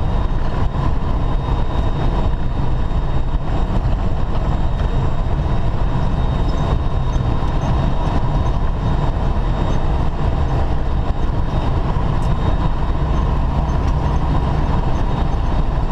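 Semi truck driving at highway speed, heard from inside the cab: a steady low drone of diesel engine and road noise.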